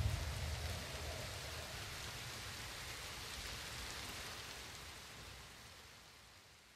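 Closing of an electronic dance track: a final deep bass hit, then a hissing noise wash that fades steadily away toward silence.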